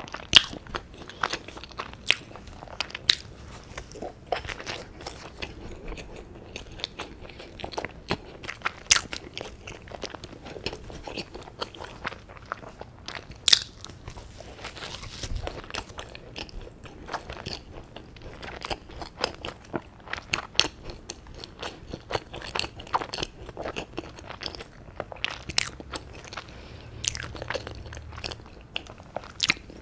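Close-miked chewing and biting of a bread sandwich with lettuce: soft wet chewing broken by frequent sharp crunches and mouth clicks, a few of them louder.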